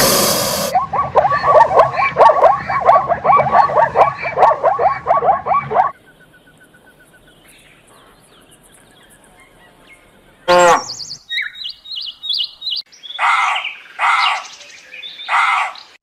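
A series of animal calls. A short loud noisy burst at the start gives way to fast, repeated chirping calls for about five seconds. After a quieter stretch comes a single sweeping call, then short high chirps and a few louder calls near the end.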